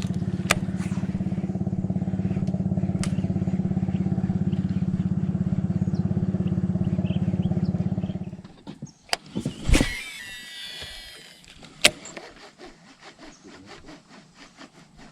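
A small engine runs steadily with an even pulse, then stops about eight and a half seconds in. A few sharp knocks follow, the loudest about twelve seconds in.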